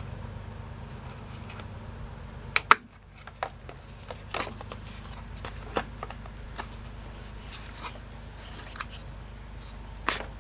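Clicks and knocks of a housing being fitted back onto an LG front-load washing machine's drain pump assembly, with a sharp double click about two and a half seconds in and lighter knocks after it. A steady low hum runs underneath.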